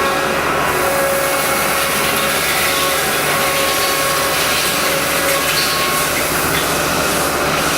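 Haas EC-400PP CNC horizontal milling machine running: a loud, steady mechanical noise with a few whining tones that come and go.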